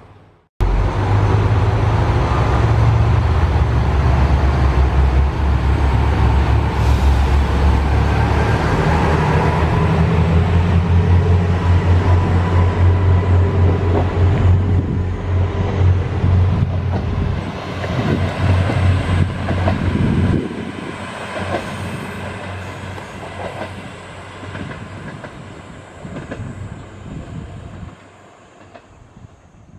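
Two JR Kyushu diesel railcars pulling out of a station together: loud diesel engine throb, with the wheels clicking over rail joints as they gather speed. The sound drops sharply about two-thirds of the way through and fades away as the trains draw off.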